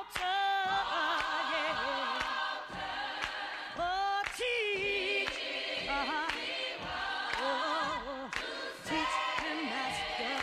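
Gospel singing, with voices holding long wavering notes full of vibrato and no clear words.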